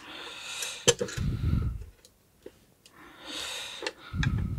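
A man breathing heavily close to the microphone, twice: each breath a hiss of air followed by a low rumble of air hitting the microphone. There is a sharp click about a second in.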